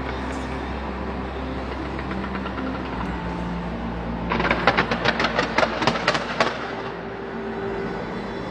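Fireworks going off over a steady low rumble. A little past the middle comes a rapid run of sharp bangs, about five a second for two seconds.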